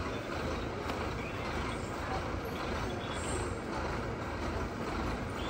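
Lorry engine running steadily.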